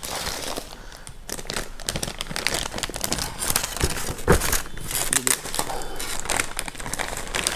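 Clear plastic packaging bag crinkling in quick, irregular crackles as hands unwrap a boxed air pistol from it.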